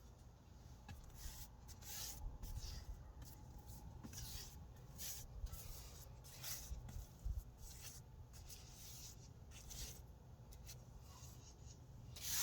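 Bristle paintbrush stroking and dabbing wet primer onto cedar planks: faint, irregular scratchy swishes, several a second at times, over a low rumble.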